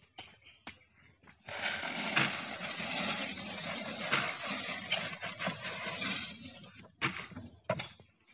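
A bucketful of loose wooden safety matches poured from a plastic bucket into a glass tank, a dense rattling cascade of sticks that starts about a second and a half in and trails off after about five seconds. A few single clicks of settling sticks follow.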